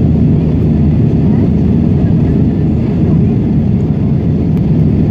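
Steady low roar inside the cabin of an Airbus A320 climbing after takeoff: jet engine and airflow noise heard from a window seat over the wing.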